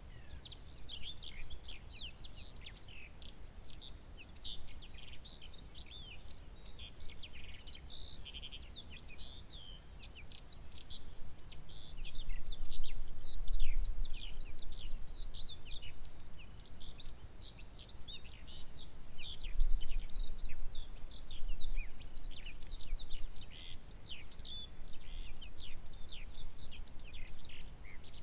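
Dense, continuous chirping and twittering of small songbirds, many short high notes overlapping. A low rumble swells twice, around the middle and again about two-thirds through.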